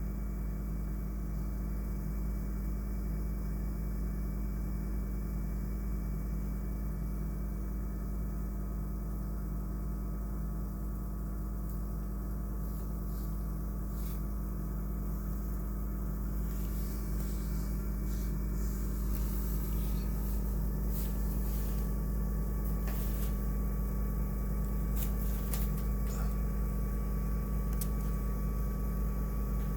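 Dryer vent making noise with the dryer switched off: a steady low hum with fixed tones, joined about halfway through by scattered light clicks and rattles.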